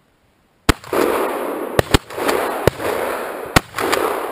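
Shotgun shots at pigeons: about five sharp bangs in quick succession, the first the loudest, with a loud rushing noise between them.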